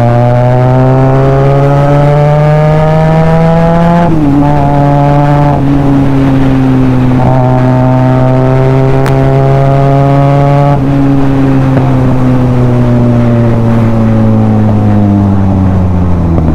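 Benelli TNT 300's parallel-twin engine and exhaust under way. The engine note climbs for about four seconds as the bike pulls, holds fairly steady through the middle, and falls away over the last five seconds as it eases off.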